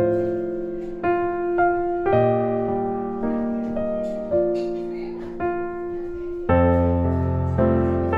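Background piano music: a melody of single notes, about two a second, over held low notes.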